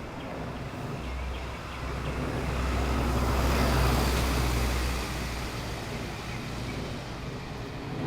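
A vehicle passing by: its noise swells to a peak about four seconds in and then fades away.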